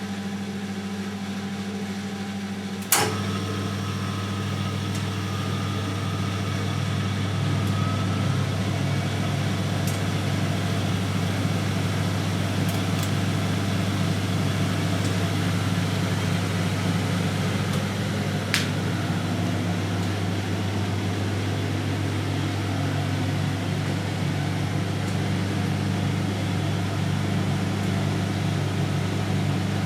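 Siemens Siwamat 960 washing machine running its final spin: a steady motor hum. A sharp click about three seconds in, where the hum gets louder and fuller, and another click later.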